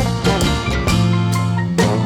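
Recorded rock band playing an instrumental passage without singing: held pitched notes over a bass line, with a drum strike about every half second.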